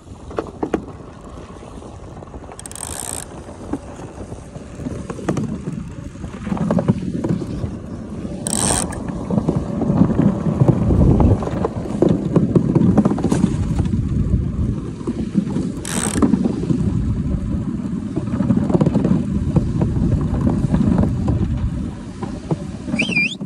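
DN iceboat's steel runners running over smooth black ice: a low, dense rumbling chatter that grows louder after about six seconds, with a few brief high-pitched pings.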